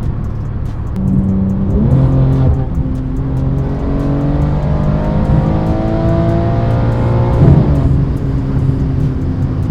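BMW M3 (G80) twin-turbo straight-six through an aftermarket titanium exhaust, accelerating hard with its pitch climbing steadily for several seconds, then dropping sharply at an upshift near the end.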